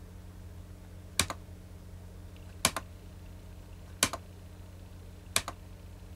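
Computer mouse button clicked four times, about a second and a half apart, each click a quick press-and-release pair, over a low steady hum.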